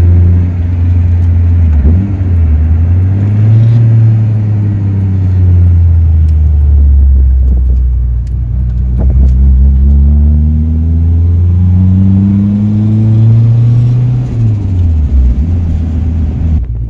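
Turbocharged SOHC Honda D16Z6 four-cylinder engine heard from inside the Civic's cabin as the car is driven. The revs drop sharply at a gear change about two seconds in, climb again, ease off slowly, then climb for several seconds before another sharp drop near the end.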